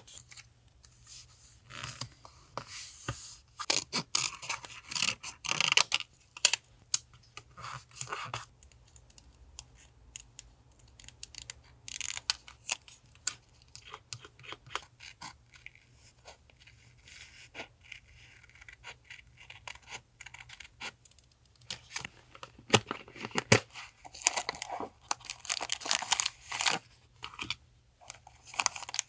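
Paper collage materials being handled at a desk: crinkling, tearing and light taps and clicks in irregular bursts, busiest at the start and again in the last third.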